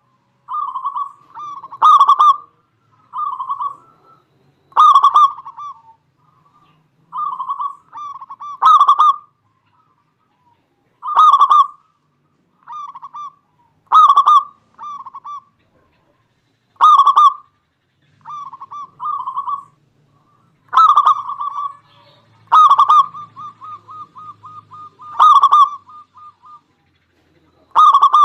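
Local perkutut (zebra dove) cooing over and over, with a loud phrase every two to three seconds and quieter phrases between them. About two-thirds of the way through comes a quick run of short even notes.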